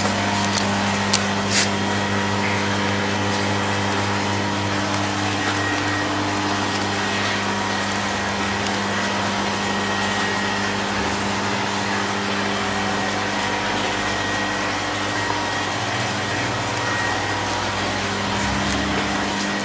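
Steady machine drone in a distillery hall: an even rushing noise with a low hum, a couple of brief clicks in the first two seconds. The higher notes of the hum fade through the middle and return near the end.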